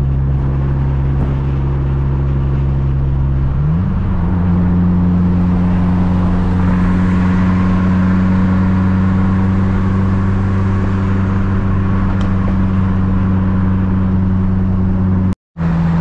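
Mitsubishi Lancer Evolution VIII's turbocharged four-cylinder engine heard from inside the cabin on the move: a steady drone whose pitch climbs quickly about four seconds in and then holds at the higher revs. The sound cuts out for a moment near the end.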